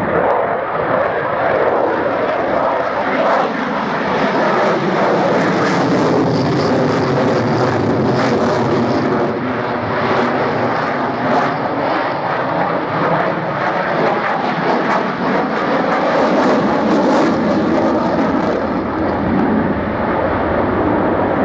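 Belgian Air Force F-16 fighter's jet engine, loud and continuous, with slow shifts in pitch as the aircraft moves past during its display.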